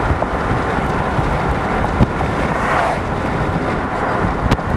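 Strong storm wind buffeting the microphone: a steady rushing noise with a low, fluttering rumble, and two short knocks, one about two seconds in and one near the end.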